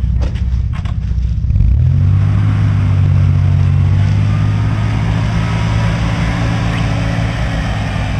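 A vehicle engine comes in under load about two seconds in and then runs at steady revs.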